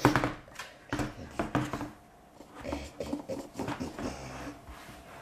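A few light knocks and taps of a vinyl toy figure being handled and set down on a tabletop, the sharpest near the start and about a second in.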